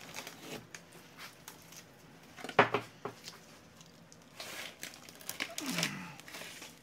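A stiff fiberglass mold being lifted and handled off its plug: scattered knocks and crinkling rustles from the cured laminate and its ragged glass-mat edges. One sharp knock comes about two and a half seconds in.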